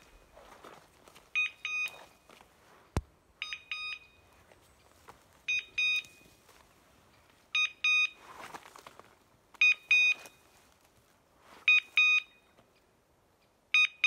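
Dog beeper collar in point mode: short, high-pitched electronic beeps in quick pairs, repeating about every two seconds, the signal that the English setter wearing it has stopped and is holding a point.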